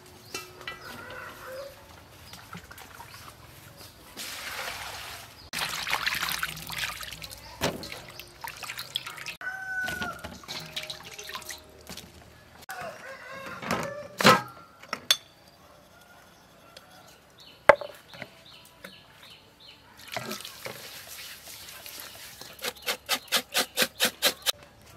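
Water sloshing as vegetables are rinsed by hand in a steel bowl, with chickens clucking and calling in the background. Near the end comes a quick even run of knife strokes, about five a second, on raw pork belly skin in a steel bowl.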